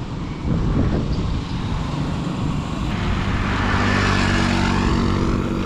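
Wind and road noise on a bicycle-mounted action camera while riding along a road. A motor vehicle's engine hum builds in the second half.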